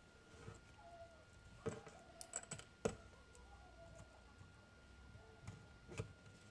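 Faint, scattered clicks and taps of a knife against a wooden cutting board and the small cherry peppers being cored, a cluster of them a couple of seconds in and one more near the end.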